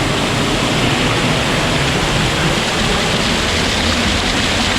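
Small rainforest waterfall and creek rushing over rocks: a steady, loud wash of falling water.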